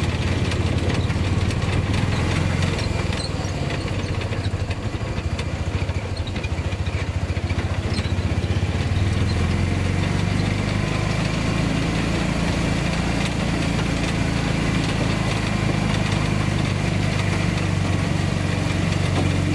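A small vehicle's engine running steadily as it drives along a brick-paved road, heard from on board. Its note rises about halfway through.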